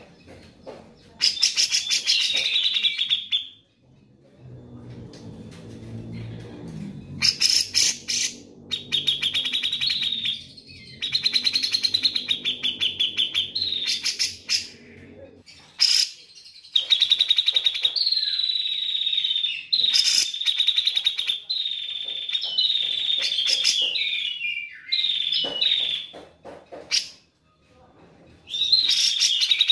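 Grey-cheeked bulbul (cucak jenggot) singing: repeated bursts of fast, high-pitched trilled chatter, each lasting from about a second to several seconds, separated by short pauses.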